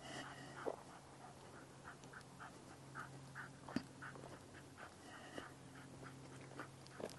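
French bulldog panting faintly and rhythmically, about two to three breaths a second, as it trots along, with a few sharper footfall crunches on the gravel trail.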